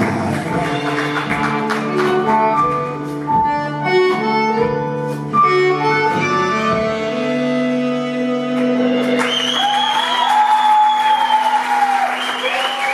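A live saxophone and upright double bass play the close of a number and end on a long held note. About nine seconds in, the audience breaks into applause and cheering.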